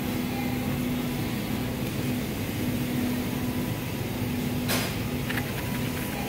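Steady background hum and hiss of a store interior, with one sharp click and a few light taps about three-quarters of the way through as a small cardboard snack box is handled.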